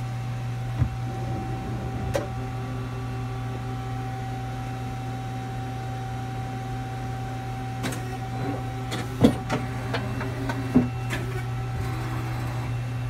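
Hyundai Hit-160M CNC lathe cycling a program: a steady machine hum with a held whine that changes pitch about eight seconds in, and several sharp clicks and clunks of its moving parts, the loudest about nine seconds in.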